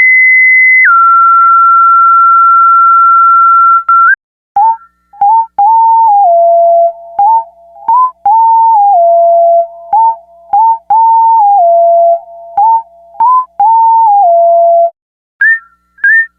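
Electronic organ playing single, pure, whistle-like notes. A high note is held for about four seconds, then a quick run of short, lower notes steps up and down, and higher notes return near the end.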